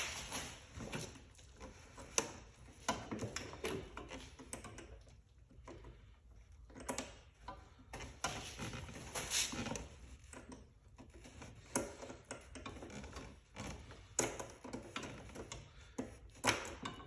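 8 mm ratcheting wrench working a hose clamp screw in short strokes: scattered, irregular clicks and light metallic knocks. Each stroke gains only about a quarter turn.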